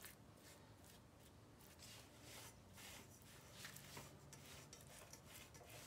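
Faint rubbing and scraping of a silicone spatula pressing and spreading crumbly cornmeal dough across the bottom of an oiled steel pan, in soft, irregular strokes.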